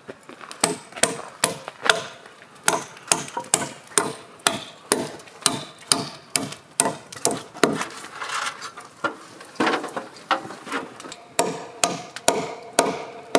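Claw hammer driving nails into log timber: steady blows, about two a second, toenailing a floor beam to its post so it doesn't wiggle.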